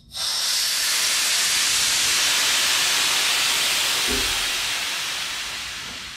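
Compressed air hissing through the rear air-ride suspension's air line and manual paddle valve as the air bags are cycled. The hiss starts suddenly, holds steady, then fades away over the last couple of seconds.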